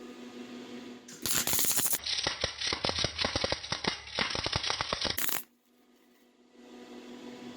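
Electric arc welding crackling in one burst of about four seconds as a weld is laid on a steel frame, starting a little over a second in and cutting off sharply. A steady hum runs before and after it.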